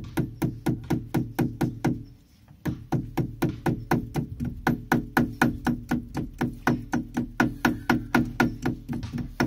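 Rubber mallet tapping a new oil seal into the output-shaft housing of a Borg Warner Velvet Drive 71C marine transmission, at about four quick, even taps a second with a short break about two seconds in.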